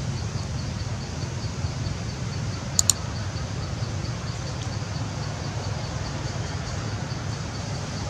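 Forest ambience: a steady low rumble under a faint high insect ticking, about three ticks a second, with two quick sharp high chirps close together about three seconds in.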